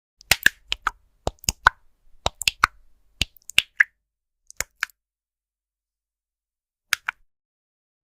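Keys on a mechanical computer keyboard being typed, crisp separate clicks in an uneven quick run for about five seconds. A pause follows, then two more keystrokes near the end.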